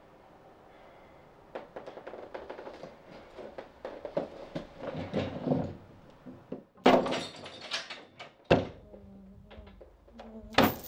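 Knocking and scraping against a door, a run of rapid small knocks followed by heavy thuds on the door about seven and eight and a half seconds in, with more near the end.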